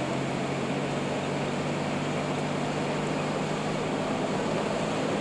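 Steady engine and road noise heard from inside a moving car's cabin, with a low, even hum.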